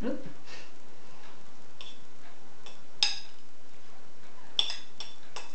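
A knife clinking against a ceramic bowl as strawberry pieces are scraped out: a few separate sharp, ringing clinks, the loudest about three seconds in, then three quick ones near the end.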